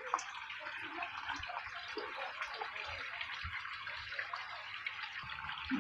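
Steady hiss of running water splashing into a fish pond.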